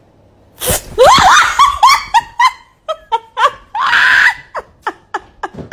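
A person shrieking and laughing, startled by a kitten pouncing at them. It starts with a sudden loud burst about half a second in, then goes on as a quick run of short, high cries.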